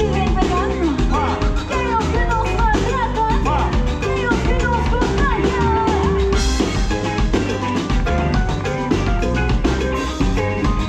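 Live Latin pop band playing an upbeat song with drum kit and percussion under a melody line.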